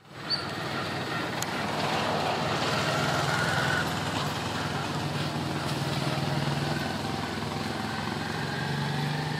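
Steady low rumble of an engine running, with a few faint thin high calls over it in the first few seconds.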